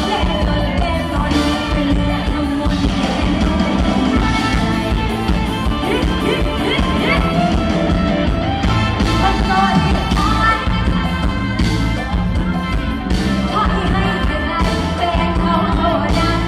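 Live Isan band music played through the stage PA, a voice singing over a steady, dense bass beat.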